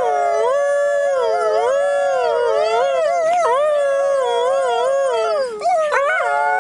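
Coyote howling in a long, warbling song, its pitch wavering up and down. A brief break comes about five and a half seconds in, followed by a rising swoop.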